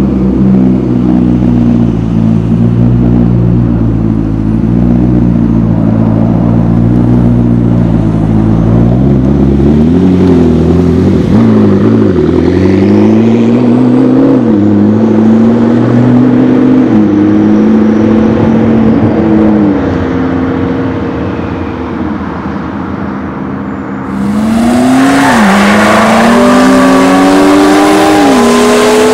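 McLaren MP4-12C's twin-turbo V8, very loud, through what is suspected to be the optional sports exhaust: idling with a few light blips, then pulling away and accelerating hard up through several gears, the pitch climbing and dropping back at each upshift before fading. Near the end a sudden, louder burst of acceleration with two more upshifts.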